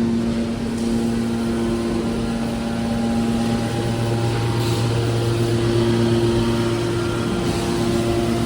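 Hydraulic aluminum baler running: a steady machine hum from its motor and pump, with held tones that shift a couple of times as the load changes.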